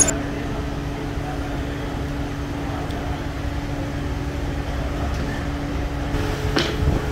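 Workshop machinery running: a steady low rumble with a constant hum that drops away about six seconds in, then a single sharp knock near the end.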